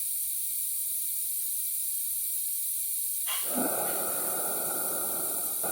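A steady hiss that turns fuller and deeper a little past halfway, then holds at the same level.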